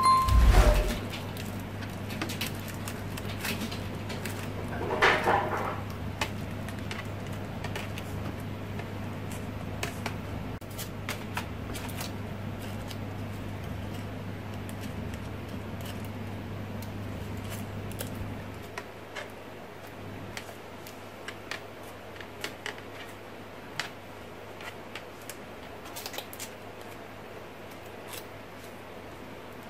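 Crepe paper crinkling and rustling in small irregular crackles as it is wrapped and pressed around a wire flower stem and leaves, over a low steady hum that drops away about two-thirds of the way through. A short electronic ding sounds at the very start.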